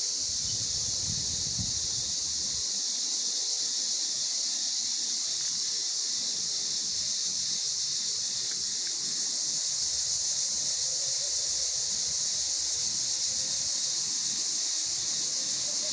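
Steady high-pitched hiss of an insect chorus, unchanging throughout, with low wind rumble on the microphone in the first couple of seconds.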